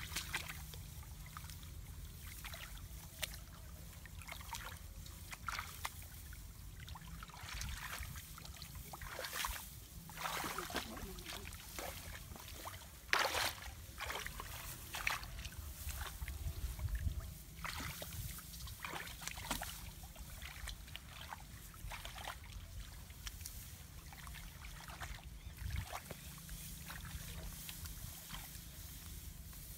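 Shallow muddy paddy water splashing and sloshing as hands grope and feet wade through it, in irregular short splashes, the loudest about 13 seconds in.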